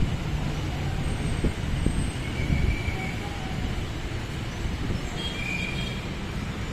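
Steady low rumble of road traffic, with a couple of brief high-pitched squeaks.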